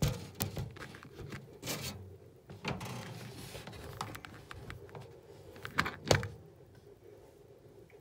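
Handling noise: irregular clicks, knocks and rustles as clear plastic containers and their lids are moved about and a terrarium is handled. The loudest pair of knocks comes about six seconds in.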